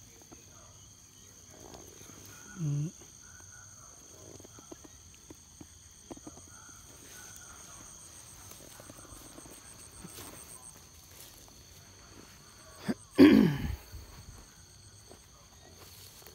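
Insects chirring steadily at a high pitch, one of them in fast pulses. About three seconds in there is a short low pitched call, and near the end a sudden loud sound that drops in pitch.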